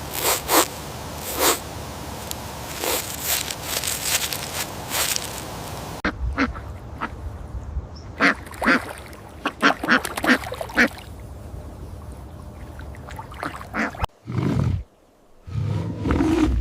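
Ducks quacking in a run of short, separate calls, cut abruptly in and out between other animal-sound clips: clicking and rustling before, and a deeper call near the end.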